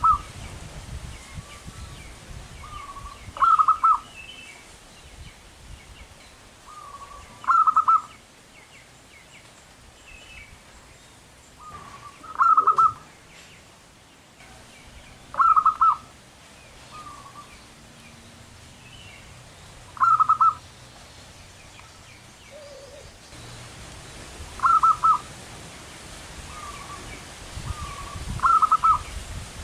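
Zebra dove cooing its short, stuttering call phrase about every four seconds, eight times, each opened by a softer lead-in note. Other small birds chirp faintly between the calls.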